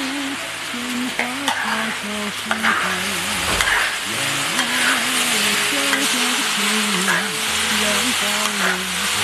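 Shredded potato stir-frying in a large wok: a steady sizzle, with the metal spatula scraping and clacking against the wok from time to time.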